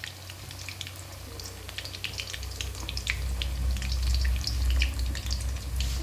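Onion pakoras deep-frying in oil in a kadhai over a low flame: a steady sizzle with scattered crackles. A low rumble comes in about two seconds in.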